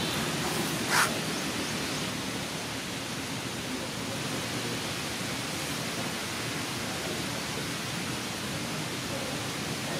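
Steady hiss of background noise, with one short sharp sound about a second in.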